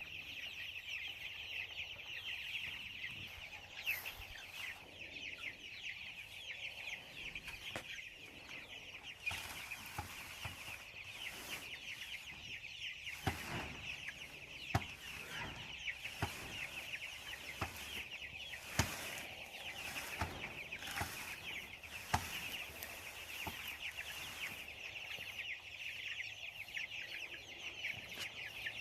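A flock of chickens chirping and clucking continuously in a dense chorus of short high calls, with scattered sharp knocks every few seconds.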